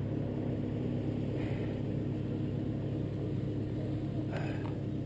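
Steady low rumble, with brief rustling about one and a half seconds in and again near the end.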